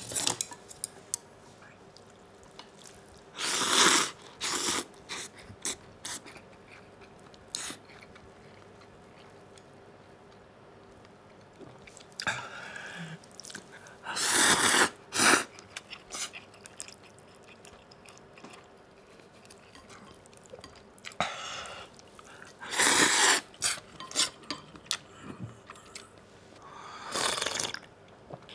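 Ramen noodles slurped hard off chopsticks: several long, loud slurps several seconds apart, with small clicks between them. Near the end, soup is slurped straight from the bowl.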